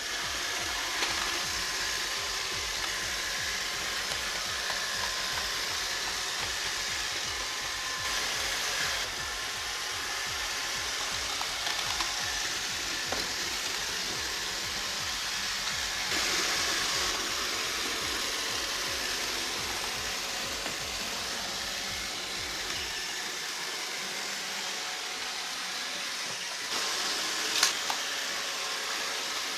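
Robot vacuum cleaner running with a steady whirring hiss from its suction fan and brushes. The low rumble drops away about two-thirds of the way through, and a single sharp click comes near the end.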